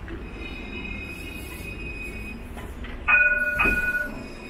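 A Melbourne C-class Citadis tram rolling past with a steady high whine. About three seconds in, two sharp, loud rings sound about half a second apart and fade within a second, typical of the tram's warning bell.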